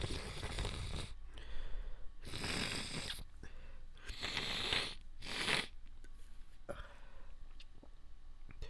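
A person stifling a run of wet sneezes: four breathy, hissing bursts over about six seconds, then quieter breathing.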